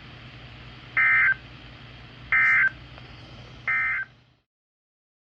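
Emergency Alert System end-of-message signal: three short bursts of harsh digital data tones, about 1.3 s apart, over a steady hum and hiss. The audio cuts off suddenly just after the third burst. The bursts mark the close of the severe thunderstorm warning.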